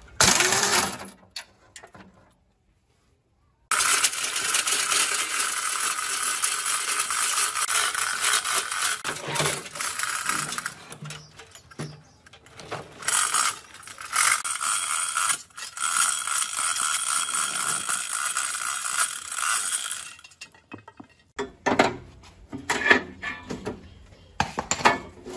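Manual chain hoist being pulled: its chain rattles and the ratchet clicks without a break for about sixteen seconds while it lifts a steel frame. A short loud mechanical burst at the start and a few sharp metal knocks near the end.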